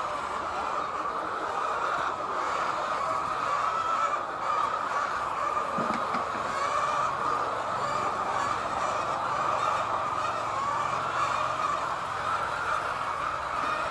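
Flock of hens in a poultry shed: a steady, dense din of many birds clucking and chattering together.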